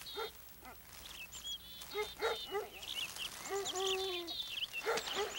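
A dog yipping a few times, then giving a longer, drawn-out whine, with small birds chirping high above it.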